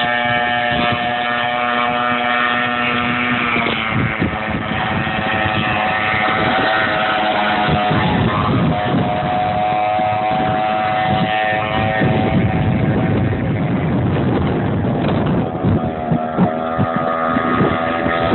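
Weed eater two-stroke engine driving a 51-inch RC boat, running steadily at high speed. Its pitch shifts a few times, falling back briefly around the middle and climbing again near the end.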